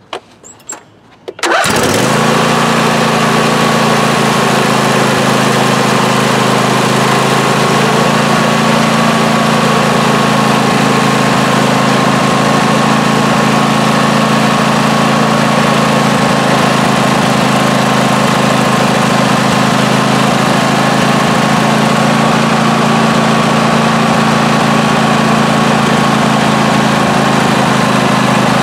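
Briggs & Stratton 26 HP twin-cylinder lawn tractor engine starting: a few short clicks, then it catches about a second and a half in and runs at a steady speed.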